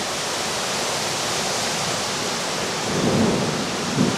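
Heavy rain pouring in a wind storm, a dense, steady hiss. A low rumble swells about three seconds in and again briefly near the end.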